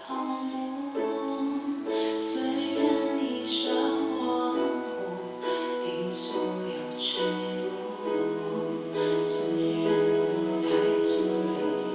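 A Mandarin pop ballad with piano, played back through a BenQ 65IZ7500 television's built-in stereo speakers; no lyrics are sung here, just held notes with light accents on top.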